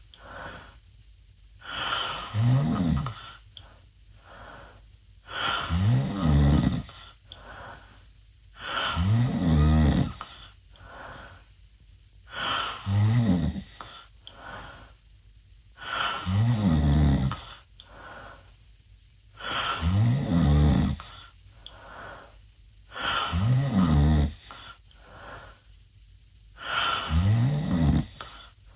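A 16-year-old boy snoring loudly with his mouth open: eight rough, rattling snores come one about every three and a half seconds, with quieter breaths between them.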